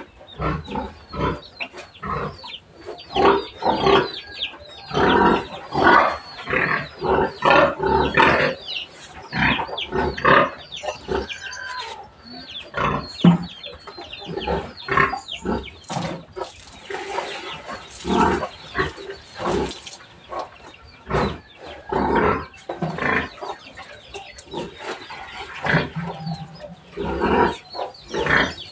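Pigs squealing and grunting over and over in quick, harsh calls. It is the racket of hungry pigs at feeding time.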